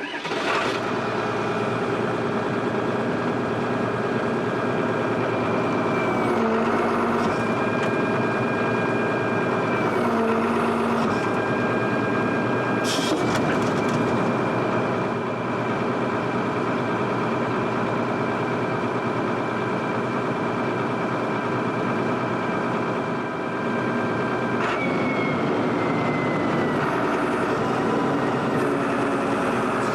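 Link-Belt 2800 excavator's diesel engine running steadily under hydraulic load while the bucket is worked, its pitch dipping briefly a few times, with a single sharp knock about halfway through.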